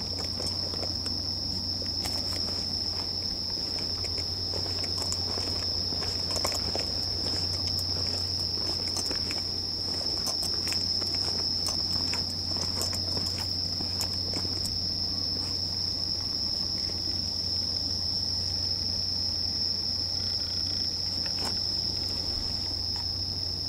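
A steady, high-pitched insect chorus, crickets chirring in one unbroken note, over a low steady hum. Scattered soft clicks and knocks from the camera being handled come through the middle of the stretch.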